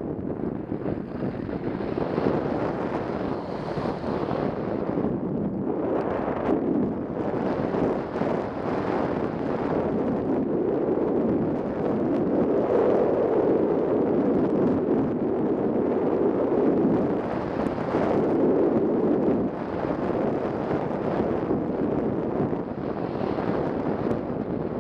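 Airflow rushing over the onboard camera's microphone on a 3-metre Ka8b model glider in flight, a steady windy noise with no engine. It grows louder through the middle and drops back a little about three-quarters of the way through.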